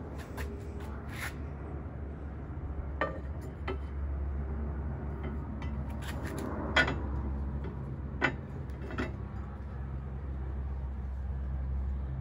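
Metal bracket plate knocking and clinking against a motorcycle's steel rear rack as it is handled and fitted, about five sharp knocks with the loudest in the middle. A steady low hum runs underneath.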